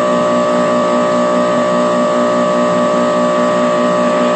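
Steady buzzing hum and hiss with several held tones, one of them pulsing evenly, the background noise of a recorded telephone call.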